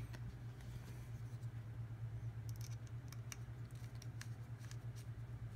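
Faint small metal clicks and ticks of a precision screwdriver and a tiny screw being set into a folding knife's handle, scattered mostly through the second half, over a steady low hum.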